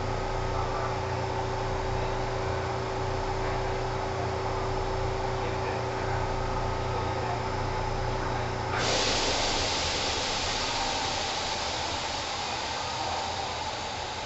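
Kintetsu 1010 series electric train running at speed, heard from inside the car: a steady rumble of wheels on rail under a steady low tone. About nine seconds in, the tone stops and a louder rushing hiss cuts in suddenly and carries on.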